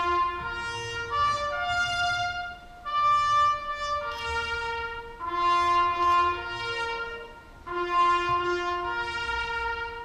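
Solo trumpet playing a slow, solemn melody of held notes in short phrases with brief breaks, the call played during a moment of silence.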